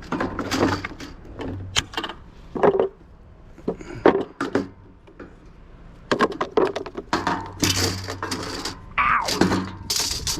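Scrap metal being handled and loaded: a run of clanks, knocks and rattles, coming thicker in the last few seconds.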